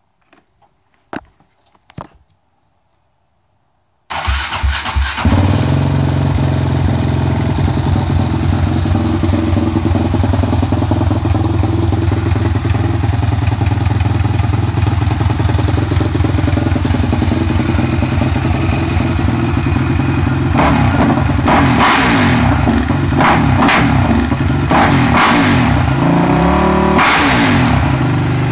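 Suzuki LTR 450 quad's single-cylinder four-stroke engine, fitted with a full Yoshimura RS5 exhaust, starting about four seconds in after a few faint clicks, then idling steadily. From about twenty seconds in it is revved in several short blips.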